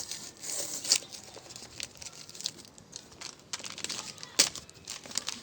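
Packaging being crinkled and torn by hand as a box is wrestled open, with irregular rustling and a few sharp clicks, the sharpest about a second in and again near the end.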